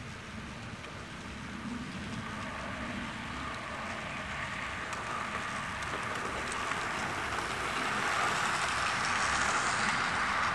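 OO gauge model train, a Bachmann Cambrian Coast Express set of two DC-powered locomotives and six coaches, running round the track. It grows steadily louder as it approaches.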